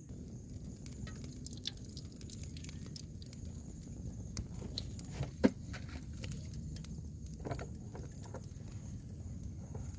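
Scattered crackles and pops from an open wood fire under an iron wok of heating oil, with one sharp, louder pop about halfway through, over a low rumble.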